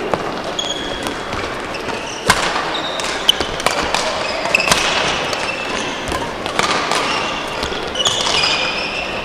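Badminton play in a sports hall: sharp hits of rackets on the shuttlecock, the loudest about two seconds in, mixed with short high squeaks of shoes on the court floor.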